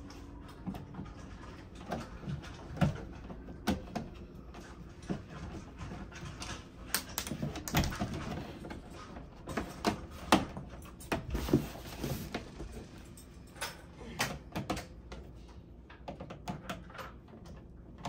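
Hand screwdriver and a plastic switch wall plate making irregular clicks and taps as the plate's screws are driven in.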